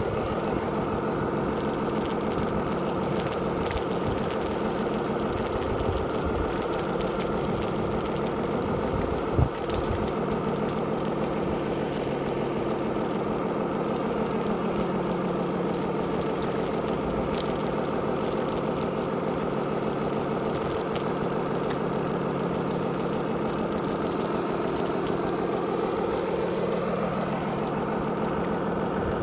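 Radio-controlled Scania R620 model truck driving, heard from on its own trailer: a steady motor and drivetrain hum with a whine that slowly rises and falls as its speed changes. A single knock about nine and a half seconds in.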